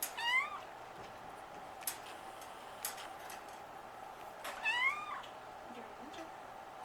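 Domestic cat meowing twice, about four and a half seconds apart, each meow rising and then falling in pitch.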